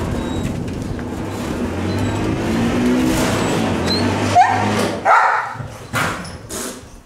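An electric drive motor runs with a steady hum, then a dog barks about four times from about four seconds in.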